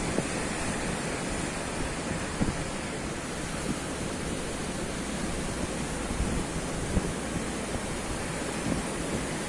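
Wind buffeting the microphone, with uneven low thumps from the gusts, over a steady wash of ocean surf.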